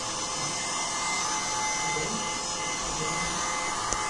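Electric heat gun running on a steady blow, a constant rush of air with a faint steady motor whine, drying the work.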